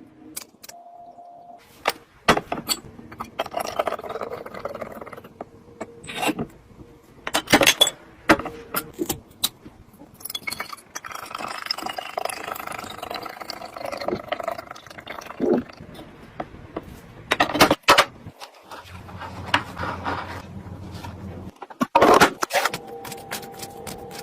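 Items being handled, moved and set down while a mini fridge is restocked: irregular sharp clacks and knocks of containers and packaging, with rustling and scraping between them.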